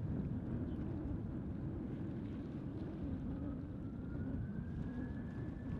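Airbus A320 jet engines rumbling on the runway, with a thin whine that rises in pitch about three seconds in and then holds steady. Wind buffets the microphone.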